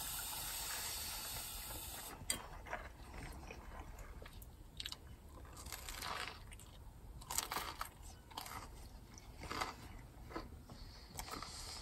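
Crunchy bites and chewing of a crisp, pan-toasted bacon-and-cheddar sandwich, in irregular bursts a second or so apart. A steady hiss fades out about two seconds in.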